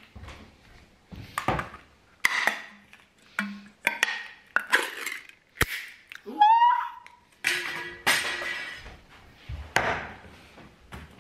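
Ring-pull tin of wasabi-coated peas being opened by hand: a run of metallic scrapes and clicks as the lid is peeled back, a sharp snap about five and a half seconds in as it comes free, and a short rising squeal just after. Near the end the tin is set down on the table with a knock.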